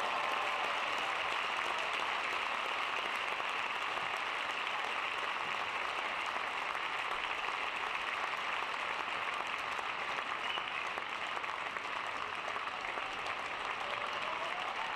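Arena crowd applauding steadily after a point, with scattered calls through it.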